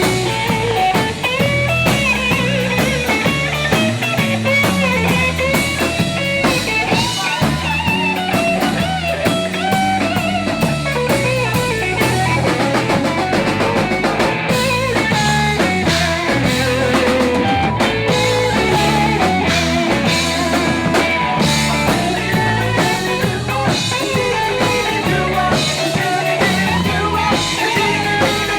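Rock band playing an instrumental passage: a bending electric guitar lead over bass and drum kit, with no vocals.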